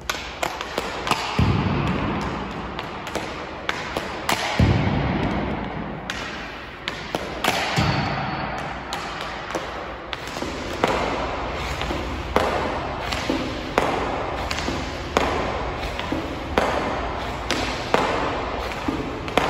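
Hockey pucks being passed off rubber bumper rebounders and received on a stick blade on synthetic ice: a series of sharp, irregular clacks and thuds, about one or two a second.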